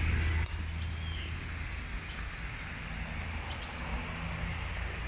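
Steady rain hissing on forest leaves and grass, with a few faint drop ticks. A low steady hum runs underneath and is the loudest part.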